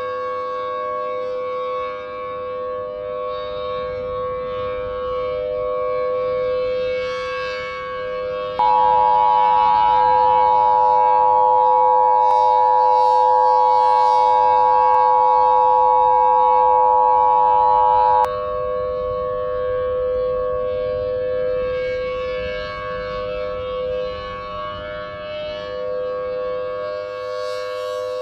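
Civil defense siren sounding a steady chord, its level slowly swelling and fading with no rise or fall in pitch. About nine seconds in, a louder electronic two-tone beep, the Emergency Alert System attention signal, sounds over it for about ten seconds and cuts off abruptly.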